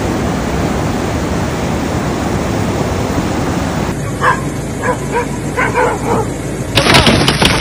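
Steady rush of wind and rain, then dogs yelping and barking in several short, high calls. Near the end a louder, clattering rush of noise starts.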